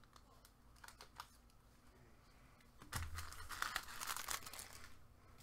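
Foil trading-card pack being torn open and crinkled by gloved hands. A few light taps come first, then about two seconds of dense crackling starting around three seconds in.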